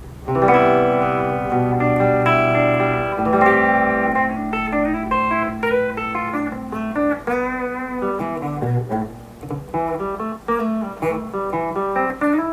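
Fender Player Series HSS Stratocaster played clean on its bridge humbucker through an amp. A ringing chord starts just after the start, followed by picked chords and single-note melodic lines.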